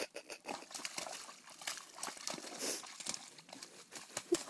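Czechoslovakian wolfdog wading through a mud puddle: irregular wet squelches and splashes of paws and body in the mud, with a brief squeak near the end.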